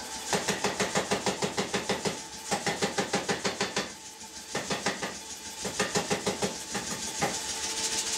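Power hammer striking a red-hot iron bar in fast, even blows, about five or six a second, in runs broken by short pauses.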